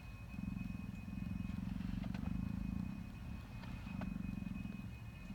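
Low buzzing drone from the front dashboard of a 2010 Lexus RX 450h, a weird noise that comes and goes in stretches of a second or two, with a couple of faint clicks.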